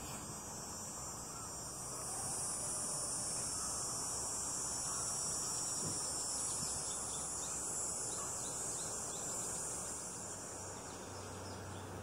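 Chorus of cicadas buzzing steadily, a continuous high-pitched shrill that swells about two seconds in and eases slightly near the end.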